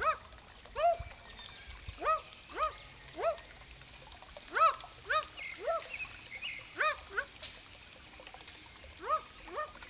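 Kowak kaok, a Papuan bird, calling: about a dozen short, squawky calls that rise and fall in pitch, spaced irregularly and sometimes coming in quick pairs.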